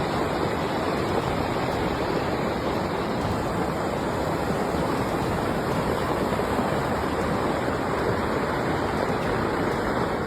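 Floodwater rushing in a steady, heavy roar.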